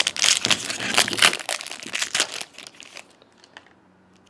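Plastic trading-card pack wrapper crinkling as it is handled and opened, in a rapid run of crackles that dies away about three seconds in.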